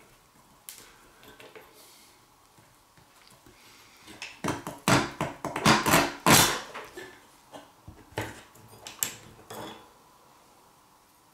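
Small metal clicks and scrapes from the steel bolster being worked along the rusty tang of a small knife clamped in a bench vise. They come sparsely at first, then in a dense, louder cluster around the middle, with a few more scattered clicks later.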